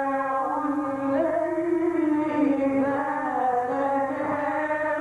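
A man's voice reciting the Quran in the melodic mujawwad style, holding one long, slowly wavering melismatic line without a pause.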